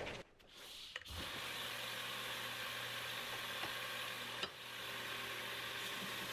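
A click, then a belt grinder starts and runs steadily with a freshly fitted sanding belt: a low motor hum under an even hiss. About four and a half seconds in there is a brief click and dip, and then it runs on.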